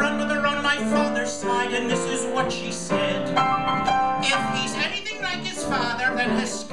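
Piano accompaniment to a comic song in Irish ballad style, with a man's voice singing over it at times.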